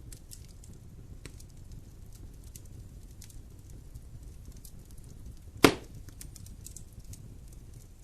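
Wood fire burning in a fireplace: scattered light crackles over a low steady rumble, with one sharp, much louder pop about two-thirds of the way through.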